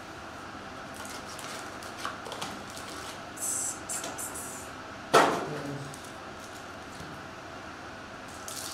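Foil trading-card pack wrappers crinkling and rustling as they are handled, with one sharp knock about five seconds in, over a faint steady hum.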